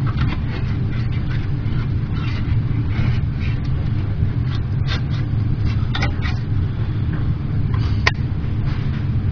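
A knife blade working into a tin can: a few sharp clicks, the clearest about five, six and eight seconds in, over a steady low rumble.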